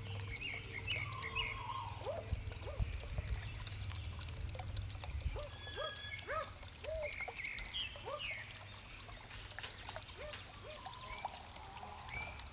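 Several kowak kaok birds calling in an aviary: many short, arched calls, with quicker higher chirps mixed in. A steady low hum runs underneath.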